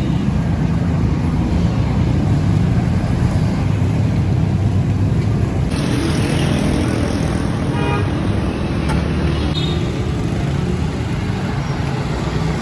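Street traffic: a steady engine rumble of passing cars and motorcycles, with a brief vehicle horn about eight seconds in.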